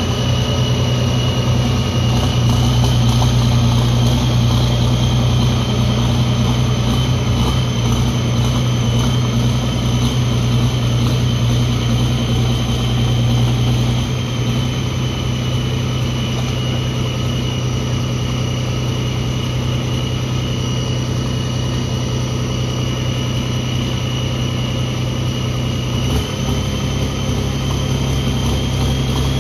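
Pulling tractor's engine running steadily with a steady high whine over it, its note unchanging; it gets a little quieter about halfway through.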